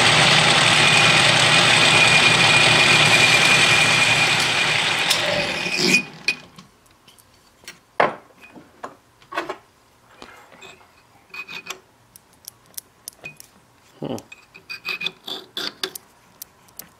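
Atlas lathe running steadily with a thin high whine while the tool takes a spring pass on a cast iron pin. About six seconds in, the lathe winds down and stops. After that come scattered sharp clicks and metal taps as the valve fork is tried onto the pin by hand.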